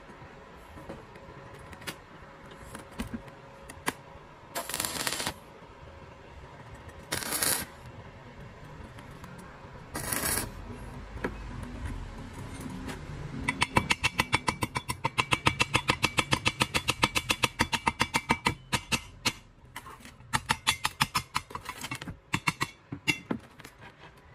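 Stick welding arc on thin steel pipe: three short separate bursts of arc hiss, then from about halfway a loud, fast, regular pulsing of about five beats a second lasting several seconds before it stops near the end.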